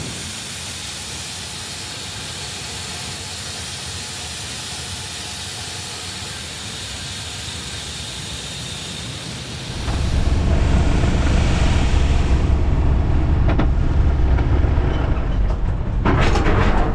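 Heavy machinery running: a steady hiss for the first ten seconds or so, then it changes suddenly to a much louder low rumble, with a few sharp knocks near the end.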